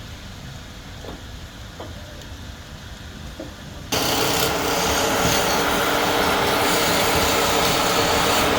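Wood being worked by a power tool, a rasping, rubbing noise over a steady machine hum, typical of turning or sanding on a lathe. It starts abruptly about four seconds in, after a quieter stretch with a few light knocks.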